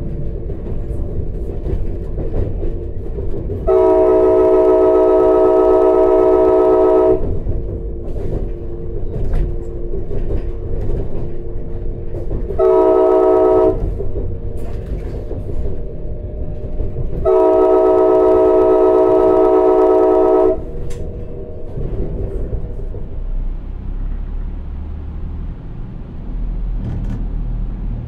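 Alstom Coradia iLint hydrogen train's multi-chime air horn, sounding like a K5LA, heard from inside the passenger car: three blasts, long, short, long. Between the blasts the train runs with a low steady rumble and some clickety-clack of the rails.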